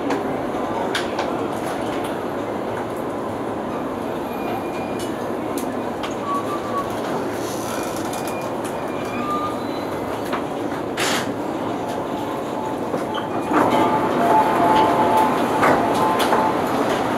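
JR Yamanote Line electric commuter train running on the track, with a steady rolling noise and a sharp knock about eleven seconds in. It grows louder near the end, with a faint whine.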